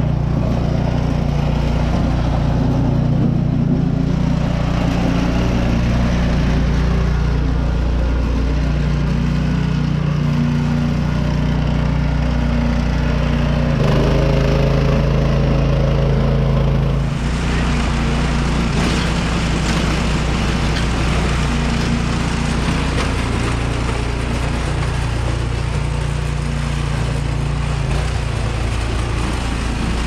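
Two-stage gas snowblower's engine running steadily. About halfway through the sound turns harsher and hissier.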